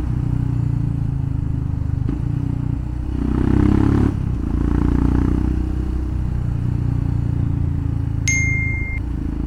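Royal Enfield Scram 411's single-cylinder engine running through a full-system aftermarket exhaust, with a brief louder rev about three seconds in. A short, thin, high beep sounds near the end.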